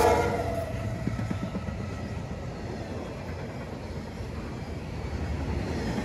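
CSX freight train passing close by: the last of its GE diesel locomotives, then double-stack container cars. The locomotive horn dies away within the first half second. After that the train rolls past with a steady rumble of wheels on rail, dropping in level once the locomotives are by.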